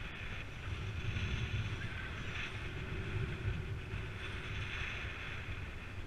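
Wind rushing and buffeting over a helmet-mounted camera's microphone as a bicycle descends a paved road at speed: a steady, gusty low rumble with a hiss above it.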